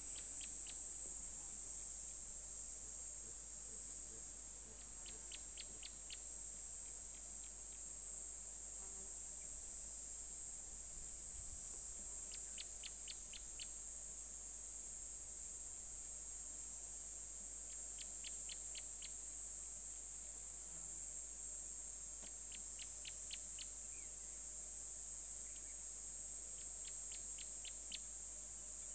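A steady, high-pitched insect drone that does not let up, with a bird repeating a short run of five or six quick high notes about every five seconds.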